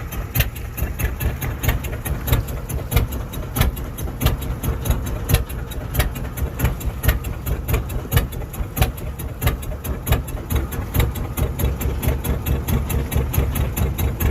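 Fishing boat's engine running steadily, with a low rumble and a regular knock about five times a second.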